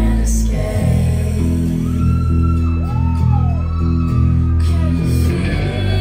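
Live band music: sustained bass and guitar chords, with a singer's voice sliding through a held, bending line in the middle.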